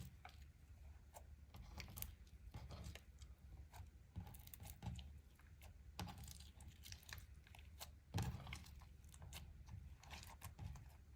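Hands kneading and stretching clear slime: faint, irregular sticky clicks and small pops, with a louder run of them about eight seconds in.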